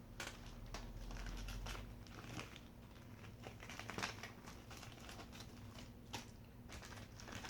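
Faint crinkling and light clicks as a piece of jewelry and its packaging are handled.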